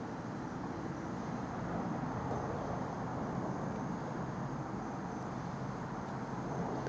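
Steady rolling rumble of a freight train passing at speed, with a faint high whine held throughout.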